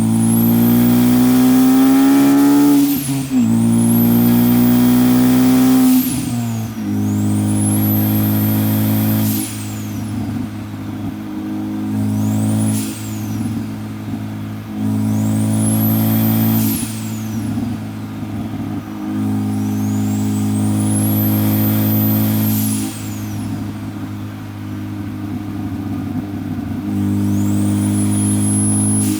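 Big-turbo Ford Focus ST accelerating through its revs, with the engine running loud under load. A high turbo whistle rises and falls again and again as boost builds and drops.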